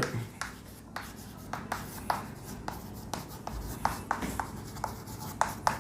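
Handwriting: a pen making many short, irregular scratching strokes and taps as a formula is written out.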